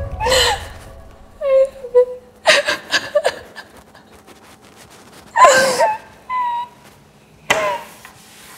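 A woman sobbing hard: sharp gasping in-breaths and high, wavering whimpers come in separate bursts, with the loudest wail about five and a half seconds in. It is acted crying at the emotional peak of a dramatic monologue.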